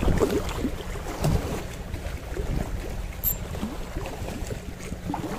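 Wind buffeting the microphone in a steady low rumble, with small waves lapping against the rocky shoreline. A brief high chirp sounds once about three seconds in.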